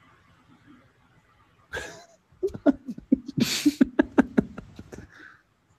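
A person laughing in a quick run of short, breathy bursts that starts about two and a half seconds in, after a short breathy sound near the two-second mark.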